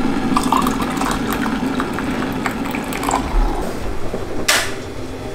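Water being poured from a pitcher into a tall tumbler, filling steadily for about three seconds. A short, loud noise follows about four and a half seconds in.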